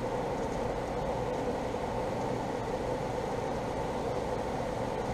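Steady low mechanical hum, even in level, with no distinct knocks or clicks.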